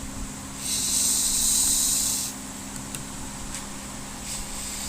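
Aerosol can of Great Stuff Gaps & Cracks expanding foam hissing as foam is sprayed through its trigger nozzle into a crack. One burst of a little under two seconds, starting about half a second in.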